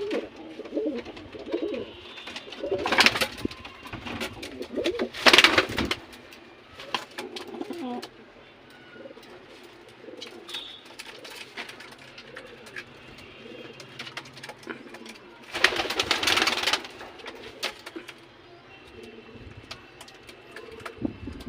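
Domestic pigeons cooing over and over. Three short, loud bursts of noise cut in, two early on and one past the middle.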